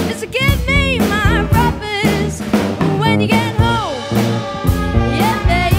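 Student jazz big band playing with a girl singing lead, the drum kit keeping a steady beat behind the vocal.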